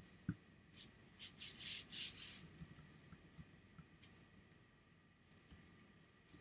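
Faint, irregular clicks and taps of a computer mouse and keyboard during photo editing, with a couple of soft thumps at the start and brief rustling about a second in.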